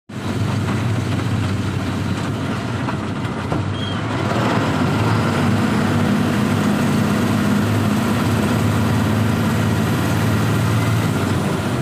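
Motor vehicle driving along, heard from inside its cab: a steady engine hum over tyre and road noise, the engine note a little louder from about five seconds in.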